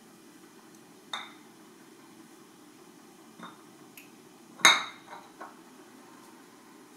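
Kitchenware being handled on a counter: a few short knocks and clinks, the loudest a sharp ringing clink a little past halfway.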